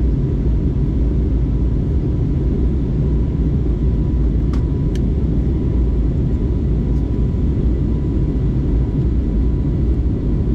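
Steady cabin noise inside an Airbus A320neo in flight: a low, even rumble of engines and airflow, with a faint steady whine above it. Two faint ticks come a little before the middle.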